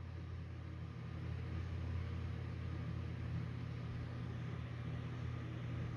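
Quiet, steady low hum with a faint hiss under it.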